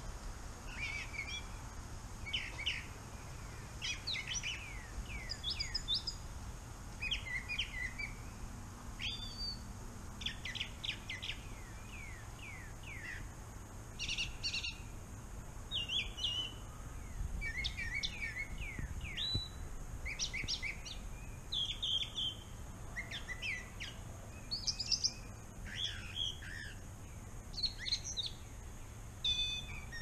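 A single songbird singing from inside dense bamboo: a long run of short, varied phrases, many built from quick down-slurred whistles, one phrase every second or so.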